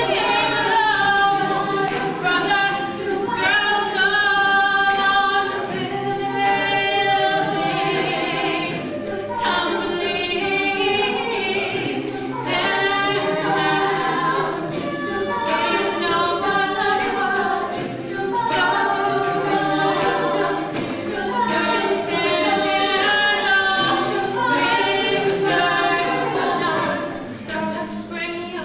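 A cappella vocal group singing in several-part harmony, with no instruments. The voices get quieter in the last second or two.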